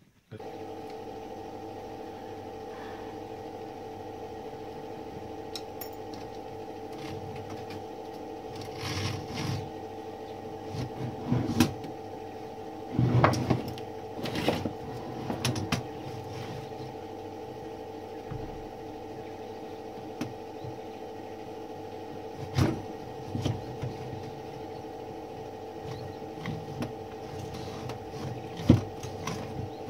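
Metal parts of an old typewriter clinking and clattering as it is taken apart by hand, in scattered knocks with a loud cluster in the middle and single sharp clanks later. A steady hum with two fixed tones sits underneath throughout.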